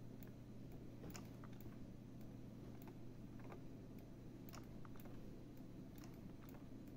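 Faint, irregular clicking of a computer mouse and keyboard, about two clicks a second, as anchor points are placed with a design program's pen tool, over a low steady hum.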